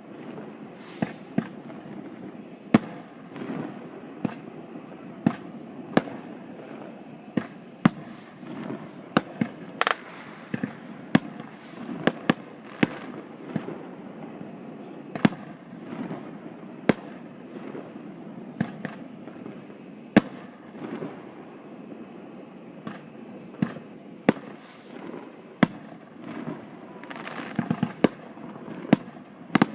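Fireworks going off: an irregular string of sharp bangs, about one or two a second, with a quick cluster of cracks near the end.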